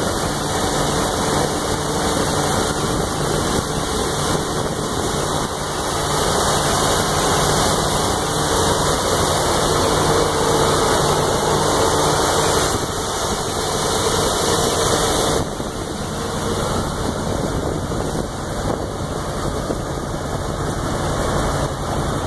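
1988 GMC C7000 truck's carburetted gasoline engine idling steadily, heard with the hood open. It becomes a little quieter about two-thirds of the way through.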